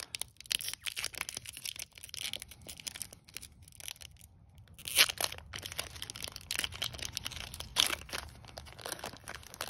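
Foil Pokémon booster pack wrapper crinkling and tearing as it is ripped open by hand and the cards are worked out of it, with a louder crackle about halfway through and another near the end.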